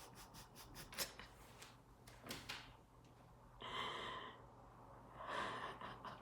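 A woman crying quietly, holding back tears: a run of small clicks and sniffs, then two long, shaky breaths.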